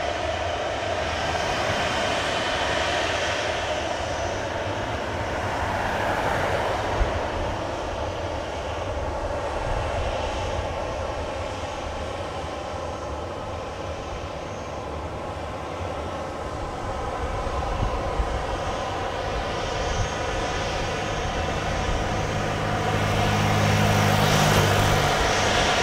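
Boeing 737-800's CFM56-7B turbofan engines running at low power as the airliner rolls along the runway: a steady turbine whine over a low rumble. A deeper hum joins for a few seconds near the end, and the sound grows louder.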